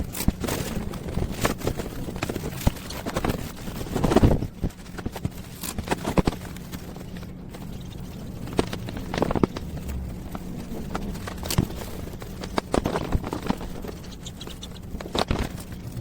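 Irregular knocks and clicks of hands handling and cleaning hard computer parts, over a steady low hum.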